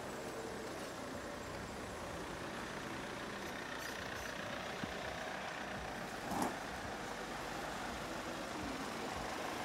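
Steady engine and road noise of a moving car, with one short, sharp sound about six and a half seconds in.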